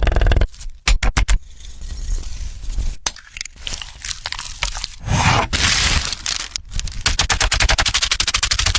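Kitchen food-preparation noises: scraping and sharp cracks, a brief louder hiss about five seconds in, then from about seven seconds a fast, even ticking.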